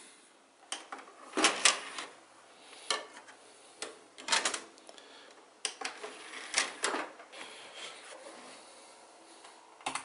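Scattered plastic clicks and knocks as hands handle a desktop PC and load a disc into its optical drive tray, over a faint steady hum.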